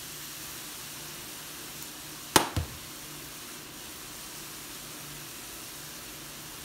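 Ground beef frying in oil in a stainless steel skillet, sizzling with a steady hiss. About two and a half seconds in come two sharp knocks close together.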